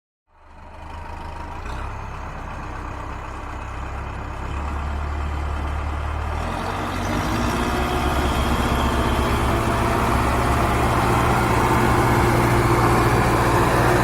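Tractor engine running, fading in after a brief silence and growing steadily louder, its note stepping up a couple of times as the revs rise.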